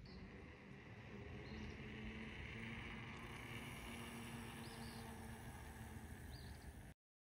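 Faint outdoor ambience: a steady hiss over a low rumble, with a few short, faint high chirps. It cuts off abruptly about seven seconds in.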